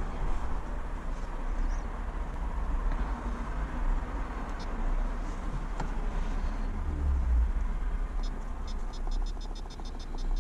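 Steady low rumble and background noise, like traffic or a vehicle running. Near the end comes a quick, even run of light high ticks, about five a second.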